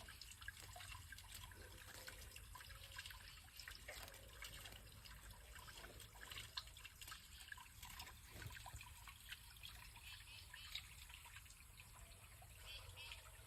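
Faint, steady trickling of creek water, with small scattered drips.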